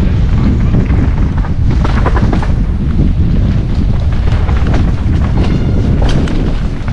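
Heavy wind buffeting on the microphone of a mountain bike riding down a trail, with scattered clicks and rattles from the bike and tyres over rough ground.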